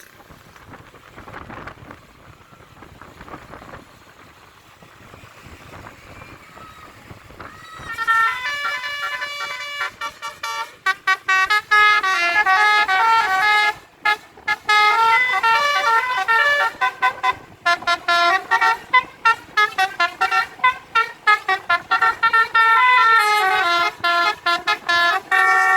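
Indonesian bus telolet horn, a multi-tone basuri musical air horn, playing a fast tune of stepped notes that starts about eight seconds in, after faint street background.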